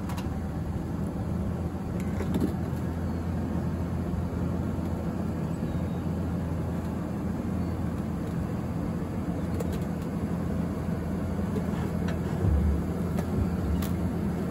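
Ford Ranger pickup engine running steadily at low speed with a low rumble as the truck creeps up onto drive-on ramps. Near the end there is a brief louder low swell.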